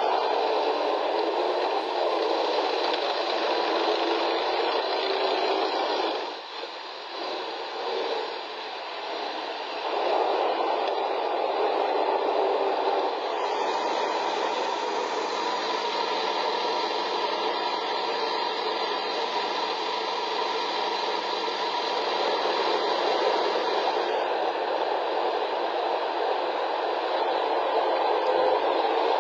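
T-72 tank's V-12 diesel engine and running gear, heard as a harsh, hissy, thin-sounding noise on low-fidelity recording as the tank drives through snow and ice. The sound drops away for a few seconds about a quarter of the way through, then returns.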